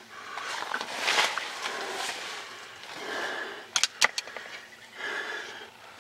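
A hunter's heavy breathing close to the microphone, a breath about every two seconds, with a few sharp clicks about four seconds in.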